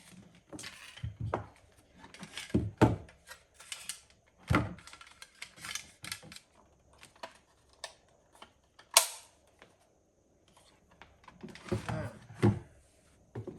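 Irregular clicks, taps and knocks of hands handling and connecting equipment and cables, with one sharp click about nine seconds in.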